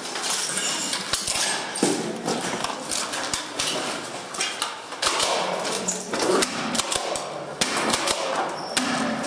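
Airsoft gunfire: scattered sharp clicks and snaps, some in quick runs, mixed with rustling.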